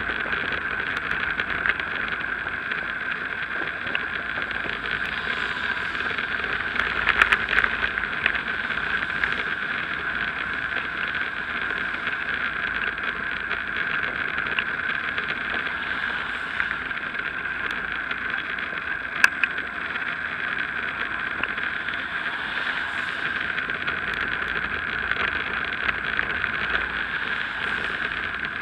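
Steady rushing wind and road noise of a bicycle ride on a wet road, heard through a cyclist's action-camera microphone, with a cluster of sharp knocks about seven seconds in and a single knock about nineteen seconds in.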